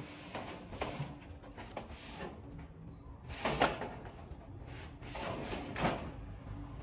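Corrugated metal roofing sheet sliding and knocking against a steel roof frame: irregular scrapes and clanks, the loudest about three and a half seconds in and another near the end.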